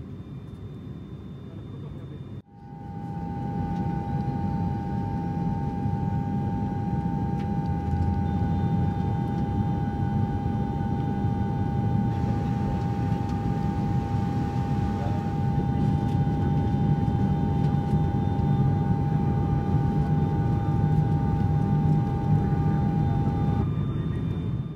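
Cabin noise of a turboprop airliner in flight: a steady low rumble with a steady droning whine over it. The sound cuts out for an instant about two seconds in and comes back louder.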